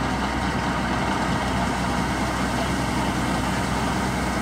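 Diesel engine of a combine harvester running at a steady speed, a constant hum that does not change.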